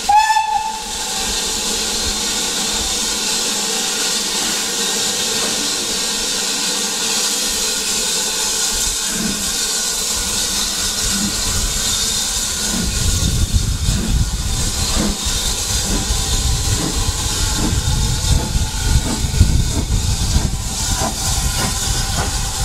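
Steam locomotive whistle sounding briefly right at the start, then a steady hiss of escaping steam. About twelve seconds in, an uneven low rumble joins the hiss.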